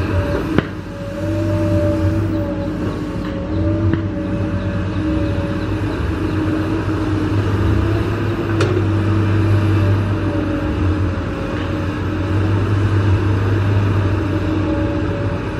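Komatsu PC200 hydraulic excavator's diesel engine running under working load, with a steady whine over the engine sound as the arm digs and swings soil. There is a sharp knock about half a second in.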